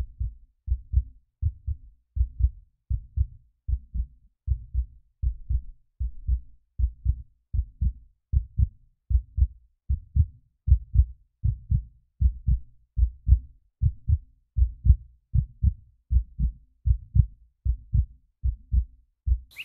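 Heartbeat sound effect: steady low double thumps, lub-dub, a little more than one beat a second, with no other sound under it.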